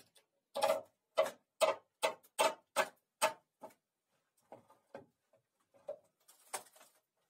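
Quick series of sharp knocks on the wooden boards of a barn frame, about two and a half a second, then a few fainter knocks and one last loud knock near the end.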